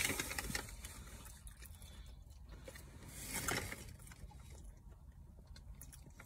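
Paper fast-food bag rustling and crinkling as a sauce cup is pulled out of it, loudest in the first second, then only faint handling noise over a steady low rumble in the car cabin.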